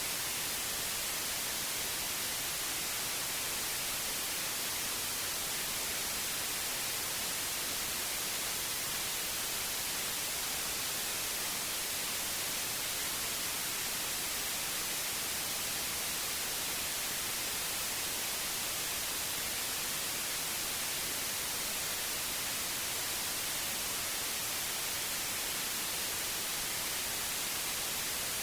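Synthetic white noise: a steady, unchanging hiss, strongest in the high frequencies.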